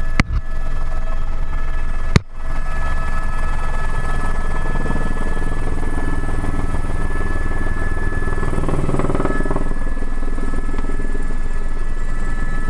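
Helicopter running steadily: a loud low rotor rumble under a thin steady turbine whine. Two sharp clicks come in the first couple of seconds.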